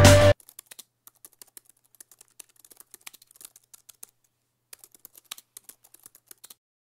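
Music cuts off abruptly just after the start, then rapid typing on a laptop keyboard: quick runs of light key clicks, with a short pause in the middle, stopping shortly before the end.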